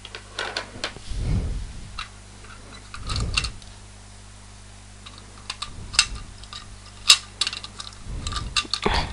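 Small hard plastic loom pieces being handled and set down: scattered light clicks and taps, with a few dull bumps from movement.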